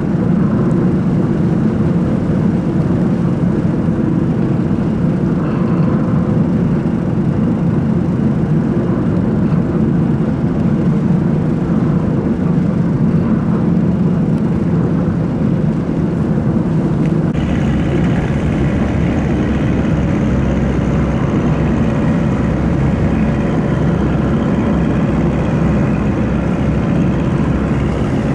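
Boat engine running steadily with a constant low drone. About two-thirds of the way through, a higher whine and a deeper rumble join.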